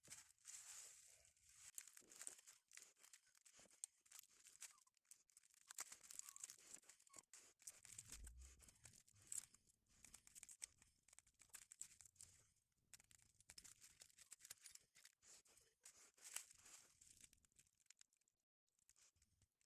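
Faint rustling, crinkling and tearing sounds made up of many small crackles, with a soft low bump about eight seconds in.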